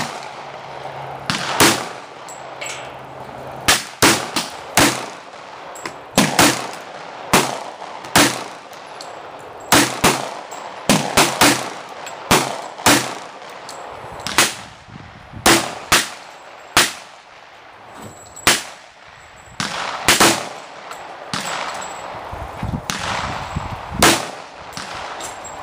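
A .45 ACP Springfield 1911-A1 pistol firing about two dozen single shots at an irregular pace, some in quick pairs and triples.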